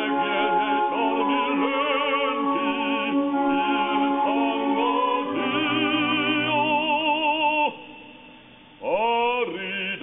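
A man singing long held notes with a strong vibrato. The voice stops about eight seconds in and comes back a second later on a rising note.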